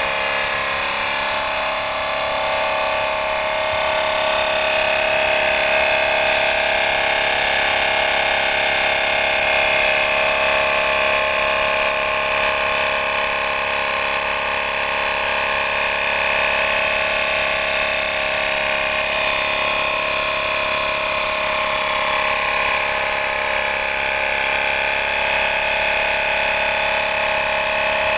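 Portable electric tyre air pump running steadily as it inflates a car tyre through a hose on the valve stem: a continuous motor hum with a steady whine.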